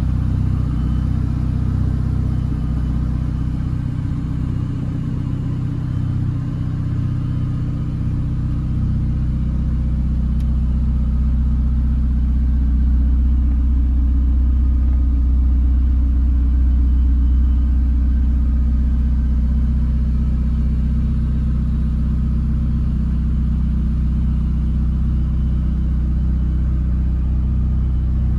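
Ferrari 488 Pista's twin-turbocharged V8 running steadily at low revs, a deep even rumble with no revving.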